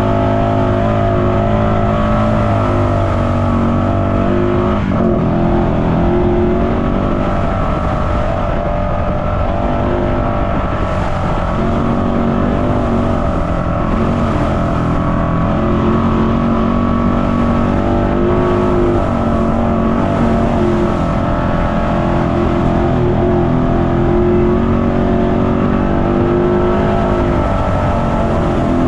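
Off-road vehicle's engine running steadily while riding, its pitch rising and dipping slightly with the throttle.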